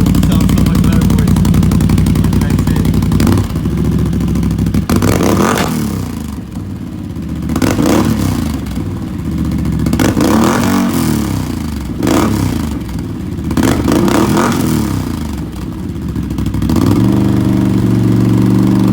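Can-Am Outlander 850 ATV's V-twin engine running through an MBRP slip-on exhaust: it runs steadily for a few seconds, then is revved up and let fall back repeatedly, and near the end it is held at a steady higher speed.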